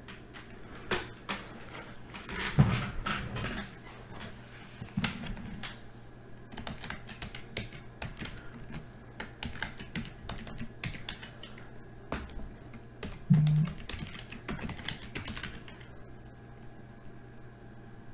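Typing on a computer keyboard in irregular runs of clicks, stopping near the end, with two louder knocks, about 2.5 s and 13.5 s in, over a steady low hum.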